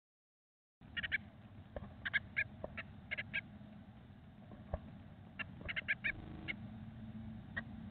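Blue tits in a nest box making short, high cheeping calls in quick clusters of two to five notes, mixed with scratching and a few knocks as the adult shifts on the nest. It starts about a second in, after silence.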